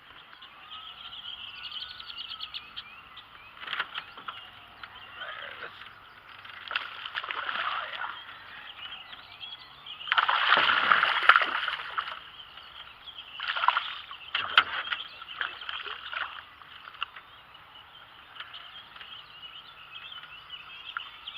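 Outdoor lake sounds: birds calling over a steady high background, with several bursts of water splashing, the longest lasting about two seconds roughly halfway through.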